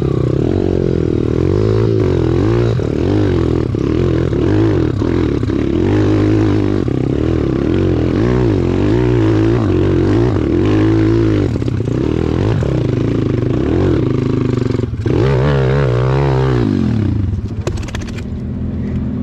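Single-cylinder four-stroke pit bike engine climbing a steep dirt trail, heard from on the bike, its pitch rising and falling as the throttle is worked. Near the end the revs drop and it settles to a steady idle as the bike stops.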